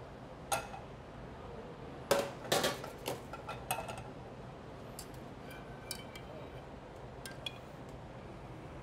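Metal skillet and saucepan being handled at a portable burner: clanks and clinks of metal on metal, loudest in a quick cluster about two seconds in, then lighter scattered clinks.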